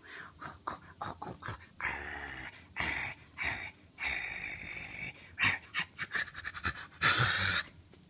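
Black cat hissing and spitting in short bursts, with the loudest, longest hiss near the end: defensive noises as a hand reaches for its toy bird.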